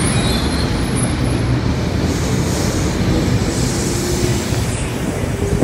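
Sydney Trains K-set double-deck electric train pulling out of the platform and gathering speed past, a steady noise of wheels on rail and traction motors.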